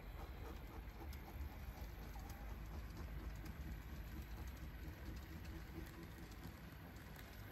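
N gauge model Class 66 diesel locomotive running slowly with container wagons: a quiet low motor hum with light irregular ticking of wheels on the track.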